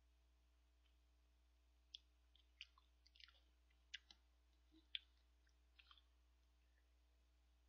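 Faint eating sounds from a paper instant ramen-and-rice cup: about a dozen short clicks and scrapes of a utensil in the cup, with chewing, scattered between about two and six seconds in.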